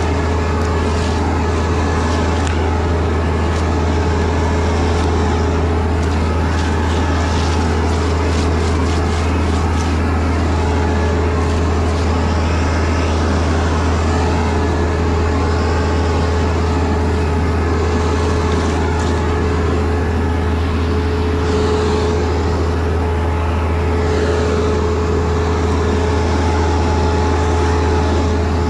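A heavy engine running steadily at one constant speed, a loud unchanging drone.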